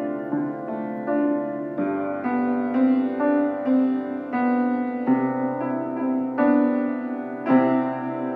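Upright piano being played: a simple melody of single notes over lower held notes, a new note about every half second to second, ending with a final chord struck near the end and left to ring.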